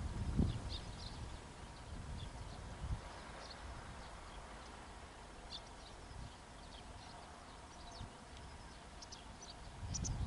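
Outdoor rural ambience: a low rumble, loudest at the start and again near the end, with faint short bird chirps scattered throughout.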